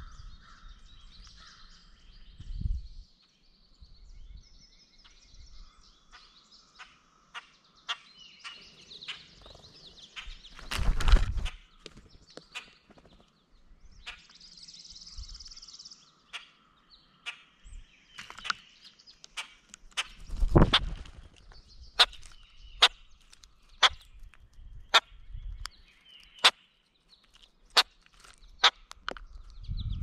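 A bird pecking at seed and peanuts on a platform feeder close to the microphone: a run of sharp taps and clicks that come more often and more regularly in the second half, with two heavier thumps. Faint bird calls in the background.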